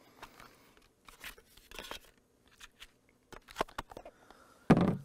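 Small box being handled and opened: scratchy rustling and light clicks, then a single loud thud near the end.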